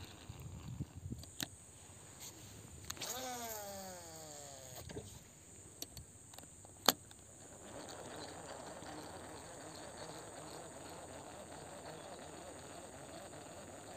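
Baitcasting reel spool whirring through a cast, its pitch falling as the spool slows, with a sharp click a couple of seconds later. A faint steady rough noise follows, typical of the reel being wound to retrieve a spoon lure.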